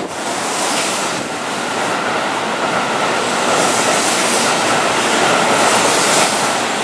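Keihan 3000 series electric train running past close alongside a station platform: a steady rush of wheel and running noise, with a faint held tone over it.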